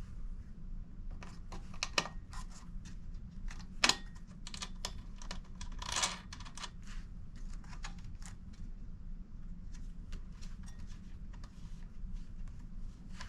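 Irregular small clicks and taps of a sluice mat being handled and fitted into a gold sluice box, with a sharper knock about two seconds in, another near four seconds, and a brief scrape around six seconds.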